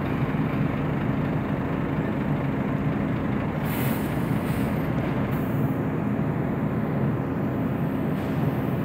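Dual-shaft shredder running steadily: a constant mechanical drone with a low hum, and brief hisses about four and five and a half seconds in.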